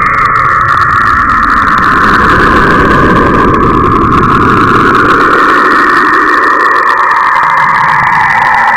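Eerie space "planet sound", a sonification of NASA spacecraft recordings: a loud, steady whooshing drone with a hissing band that slowly sinks in pitch near the end over a lower rumble that swells and fades.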